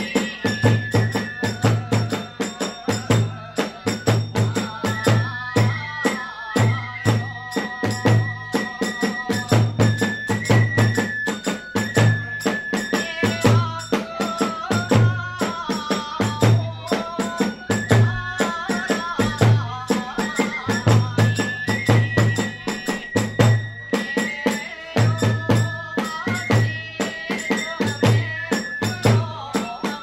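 Kagura hayashi ensemble playing: a big drum beats a steady rhythm under dense clashing of small hand cymbals, while a bamboo flute plays a high melody of held notes and ornaments.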